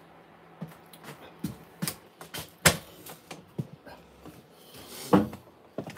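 Irregular clicks and knocks of things being handled and moved about at close range, the sharpest about halfway through and another near the end.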